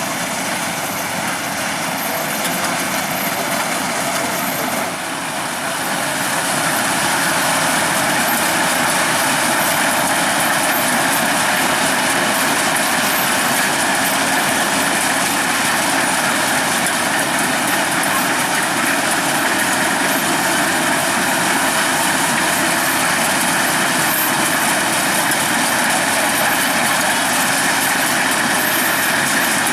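Kubota DCX 100 rice combine harvester's diesel engine and tracks running steadily as the machine travels. The sound grows louder about six seconds in, then stays level.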